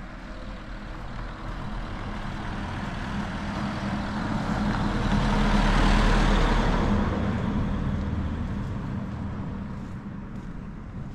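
A road vehicle driving past, its engine and tyre noise rising to a peak about six seconds in and then fading away.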